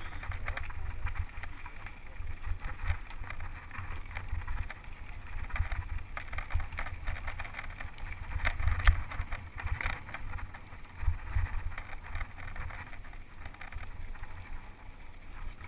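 Wind buffeting a GoPro's microphone on a moving mountain bike, a low rumble, with the tyres crunching over a dirt and gravel track and the bike knocking and rattling over bumps; the sharpest knock comes about nine seconds in.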